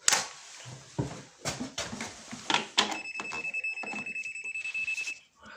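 Clicks and knocks of an electrical tester being plugged into and handled at a wall socket, then a steady high electronic beep for about two seconds with a fast ticking under it, the tester sounding during a socket wiring check.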